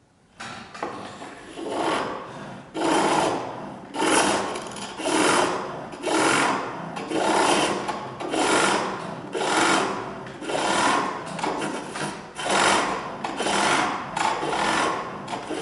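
Pole lathe turning a wooden handle: a chisel shaving the spinning wood in rhythmic scraping strokes, about one a second, the cut biting on each downstroke of the treadle and easing off as the cord runs the work back.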